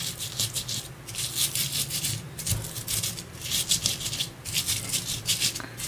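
Stone pestle grinding fresh bird's eye chilies, shallots, garlic and salt in a stone mortar (cobek): rhythmic scraping, crushing strokes, stone against stone through the wet chilies, as the spice paste is pounded fine.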